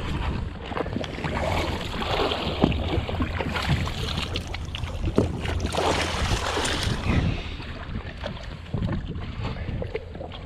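Wind buffeting the microphone over water around a drifting jet ski, with many irregular knocks and splashes, busiest in the middle few seconds.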